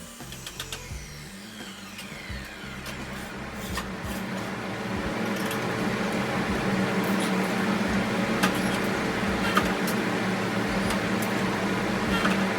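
A power tool winds down after cutting, its whine falling in pitch over the first couple of seconds. A steady machine hum then builds and holds, with a few sharp clicks.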